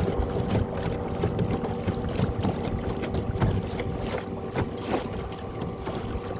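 Small fishing boat under way: a boat motor running with a steady whine, and water slapping against the hull every second or so.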